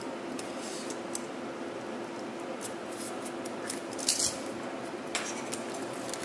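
Plastic shrink-wrap on a cardboard box being cut at a corner with a small blade and then peeled: scattered light clicks and crinkles, with one sharp crackle of the film about four seconds in.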